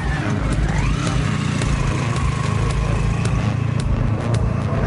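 Motorcycle-and-sidecar engine pulling away: the pitch rises during the first second, then the engine runs steadily under load. Scattered sharp ticks sit over it.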